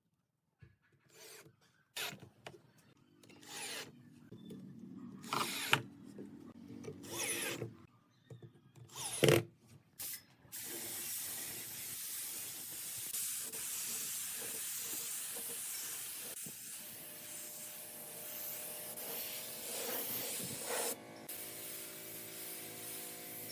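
Woodworking tool sounds: short, separate bursts of rubbing and tool noise, then from about ten seconds in a steady hiss.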